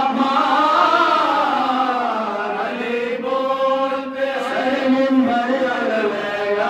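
A group of men chanting Urdu devotional verse for Muharram in unison into a microphone, without instruments: long, drawn-out melodic lines with a brief breath about four seconds in.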